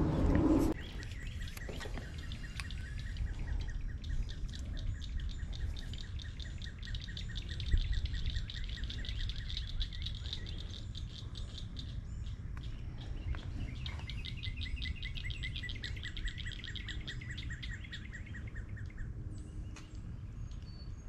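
Birds calling outdoors in long, rapid, even trills: a high trill from about 3 to 14 seconds in, then a lower trill until about 19 seconds, over a steady low rumble.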